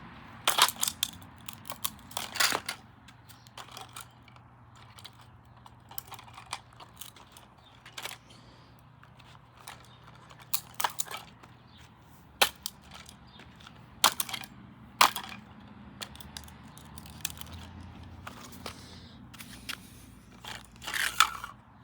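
Plastic toilet fill valve being broken apart: irregular sharp cracks, snaps and knocks of brittle plastic, a handful of them loud and the rest smaller clicks.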